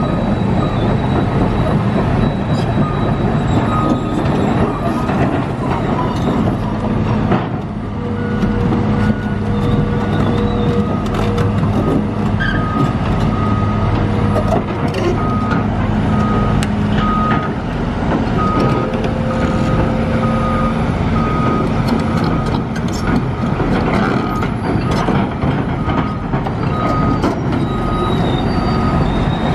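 Hitachi ZX270 LC excavator travelling: its Isuzu 6BG1T six-cylinder turbo diesel runs steadily while the travel alarm beeps about once a second, with clanks from the steel tracks.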